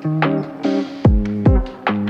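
Background music: a plucked guitar melody over a beat, with no singing.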